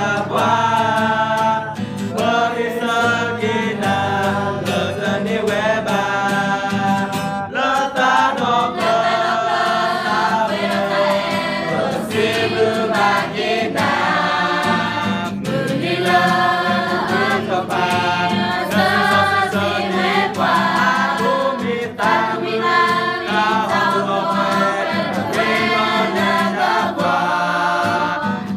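A small group of young men and women singing a song together, accompanied by a strummed acoustic guitar.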